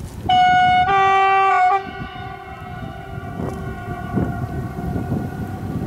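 Train horn blown for about a second and a half: one note, then a second tone joining it about half a second in. The horn then dies away over the next couple of seconds.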